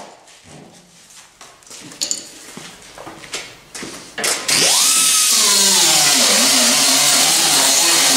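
A right-angle air die grinder fitted with a 3M Roloc nylon disc stops, leaving a few seconds of low clatter and knocks. About four and a half seconds in it starts again: the whine climbs quickly, then drops in pitch as the disc bites into the sheet-metal weld, and it grinds on steadily.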